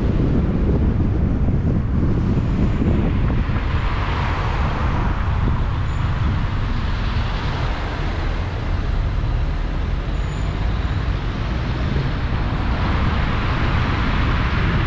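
A car driving in city traffic: a steady low road and wind rumble on the microphone, with a hiss of tyre and traffic noise that swells and fades about three times.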